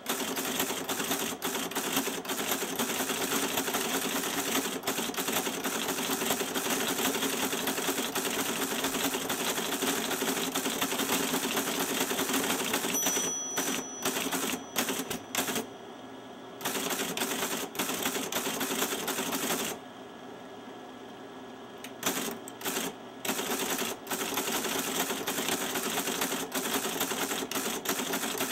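Teletype Model 33 teleprinter being typed on, its keyboard and print mechanism clattering in a fast, continuous chatter as each character is printed, over the steady hum of its running motor. Past the middle the chatter breaks off in several short pauses, the longest about two seconds, leaving only the hum.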